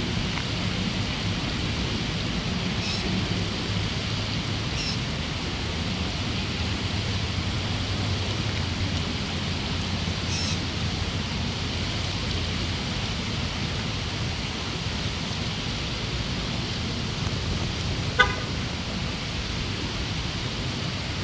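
Steady low rumble of distant road traffic, with a few faint, short high chirps and one sharp click about eighteen seconds in.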